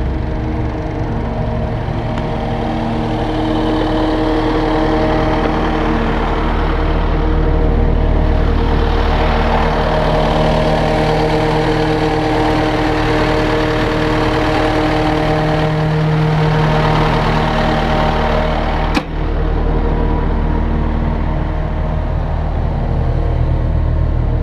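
Caterpillar 289D compact track loader's diesel engine idling steadily. A single sharp click is heard about three-quarters of the way through.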